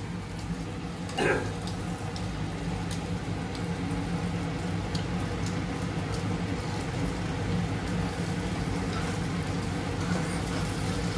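A steady low motor hum, with the faint sizzle of food frying in a pan on the stove and a few light clicks of utensils against the pan.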